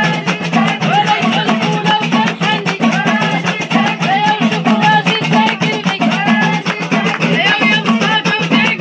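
Lively dance music with a fast, steady percussion beat and a wavering melody line over it.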